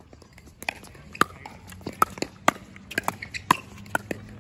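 Pickleball paddles striking a hard plastic pickleball in a quick doubles rally: a string of about a dozen sharp pocks at an uneven pace, some in rapid volley exchanges.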